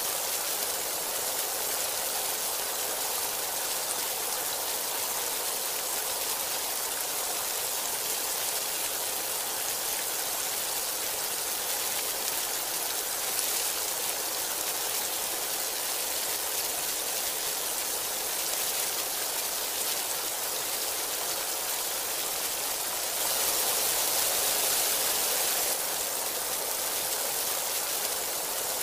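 Heavy rain falling steadily, an even hiss that swells louder for a few seconds about three-quarters of the way through.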